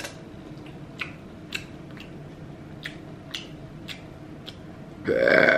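Faint wet mouth clicks from eating close to the microphone, then about five seconds in a loud, drawn-out burp begins.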